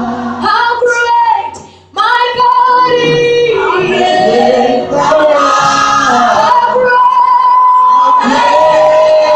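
Gospel worship song: a woman's lead voice with a group of singers holding long sung notes. There is a brief break in the singing just before two seconds in, then it comes back in.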